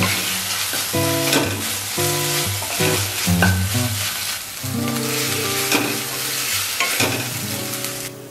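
Food sizzling as it fries in a hot pan, with irregular scraping strokes of a spatula stirring it, over acoustic guitar background music. The sizzling cuts off suddenly just before the end.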